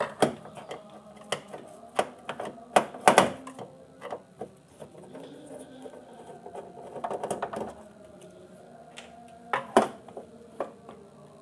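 Screwdriver working the screws out of an LCD TV's plastic back cover: irregular clicks, taps and knocks of the tool and screws against the plastic, the loudest a few seconds in and again near the end.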